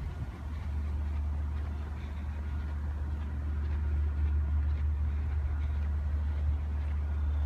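Low steady rumble, slowly growing louder, of a Long Island Rail Road diesel train still some way off, approaching the station.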